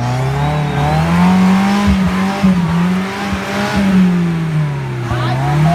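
Kia Sportage 4x4 engine revving, its pitch rising and falling again and again as the throttle works off-road, with a few low knocks and thumps in the middle.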